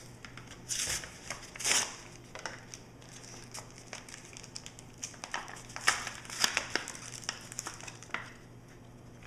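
Foil wrappers of Pokémon TCG booster packs crinkling as they are handled, in irregular bursts.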